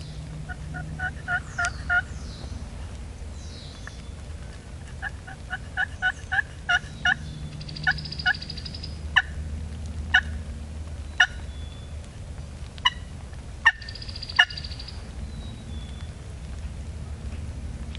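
Wild turkey calling: runs of short, evenly spaced notes about three a second near the start and again from about five to eight seconds in, then single sharp notes roughly a second apart.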